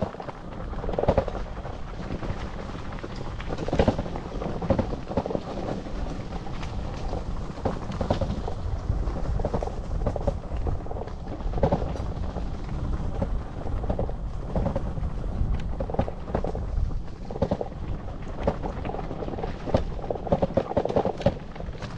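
Vector Vortex e-bike riding over rough ground: a continuous low rumble with frequent knocks and rattles all through.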